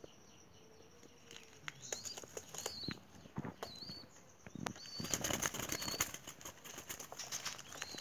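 Spotted doves flapping their wings and scuffling in a wire cage, getting busier about five seconds in. A short high peep repeats about once a second through the middle.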